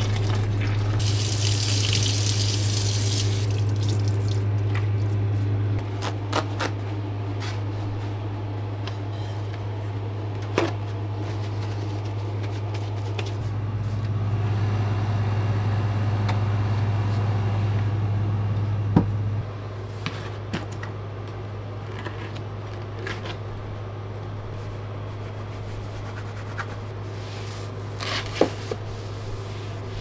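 Kitchen faucet running for a few seconds near the start as hands are rinsed under it, over a steady low hum that drops in level twice. A few sharp knocks and clicks follow as things are handled.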